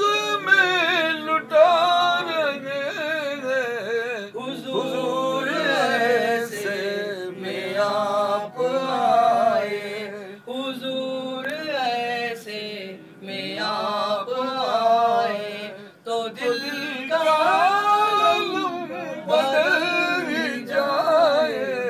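A man singing an Urdu naat a cappella, in long wavering melodic phrases with short breaks between them and no instrumental accompaniment.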